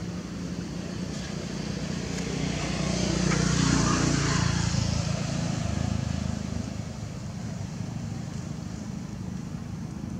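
A motor vehicle passing: its engine and road noise swell for a few seconds and then fade, over a steady low hum.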